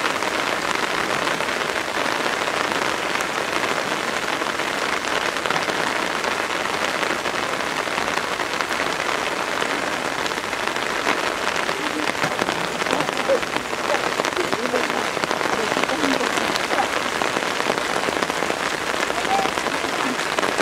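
Heavy rain falling steadily in a downpour, pattering on wet rock and pool water.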